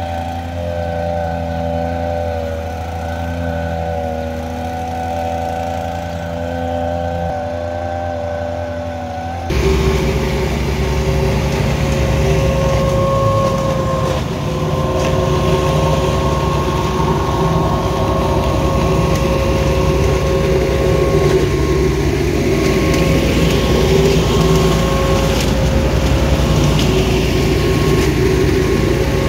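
Backpack leaf blower's engine running steadily. About nine seconds in it cuts abruptly to a louder, wheeled petrol leaf vacuum running at a steady pitch, with a rushing noise as its hose sucks up leaves.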